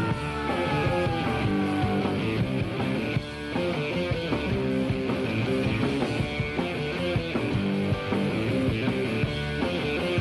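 Rock music with electric guitar and drums and a steady beat. A tone glides down over the first two seconds.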